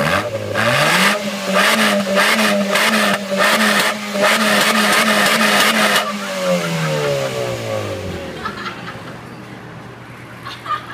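Mazda2's four-cylinder engine revved through a Ganador aftermarket stainless muffler. The revs climb in about a second, are held high with a slight wobble for about five seconds, then fall slowly back over about two seconds and settle to a low steady running note.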